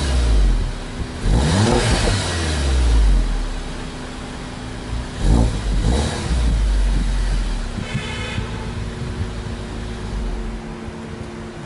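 2014 VW Golf GTI (MK7) with its 2.0-litre turbocharged four-cylinder and stock exhaust, revved in blips from idle. The revs fall away at the start, rise and fall twice more, about 1.5 and 5.5 seconds in, then settle to a steady idle.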